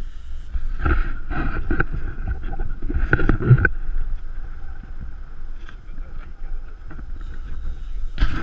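Wind rumbling on the microphone and choppy lake water lapping against a small boat's hull, with louder surges about a second in and again around three seconds.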